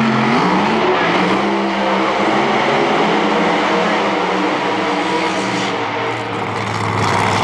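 Two supercharged AA/Gas drag cars doing burnouts side by side: engines revving hard, their pitch climbing and falling as the throttle is worked, with the rear tyres spinning on the pavement.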